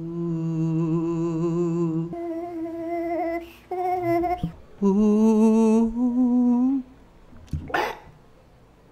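A man humming a short wordless tune in a few long, wavering held notes that step up and down in pitch. A short, loud rushing noise comes about seven and a half seconds in.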